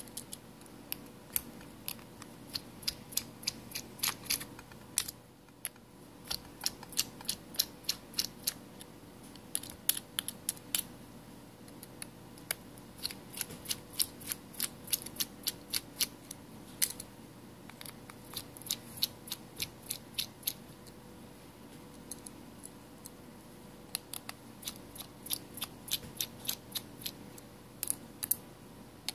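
Precision screwdriver clicking in quick, irregular runs as the tiny screws are turned out of a Samsung Galaxy S6 Edge's metal midframe.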